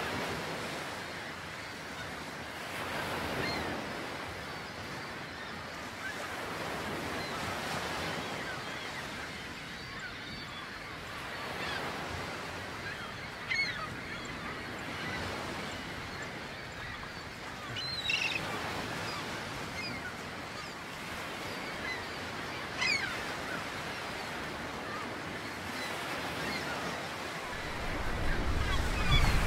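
Surf washing in swells onto a shore, with a few short, high-pitched bird calls scattered through it. Near the end, wind starts buffeting the microphone.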